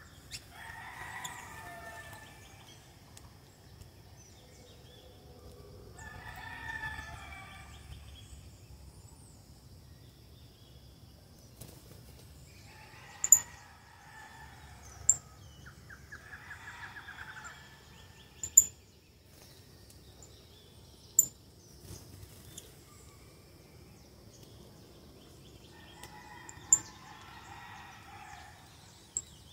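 A rooster crowing about five times, each crow lasting a second or two, with several sharp clicks between the crows and a faint steady high whine underneath.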